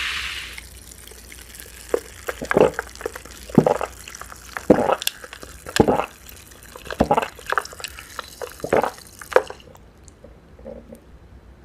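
Close-miked wet chewing of seaweed: irregular moist smacks and squelches from the mouth, about one or two a second, that stop a little over three-quarters of the way through. A steady hiss fades out in the first second.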